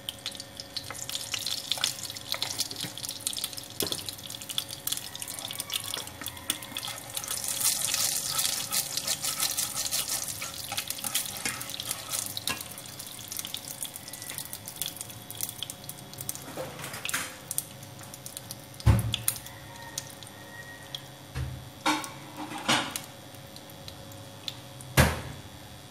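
Salted cooking oil heating in a nonstick frying pan, crackling as chopsticks stir it. Several sharp knocks come in the last third, as the chopsticks tap against the pan.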